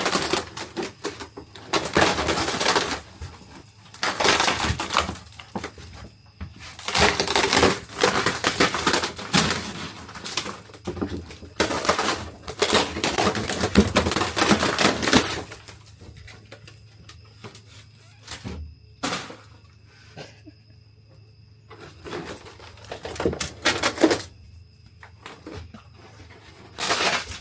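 Bursts of scraping and crackling as old material is torn out of a vintage motorhome during demolition, coming in stretches of a few seconds with short pauses between.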